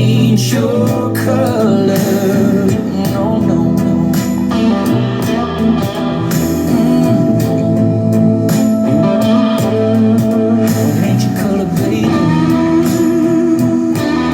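Slow country-pop song playing through an instrumental stretch, a bending guitar lead over the band.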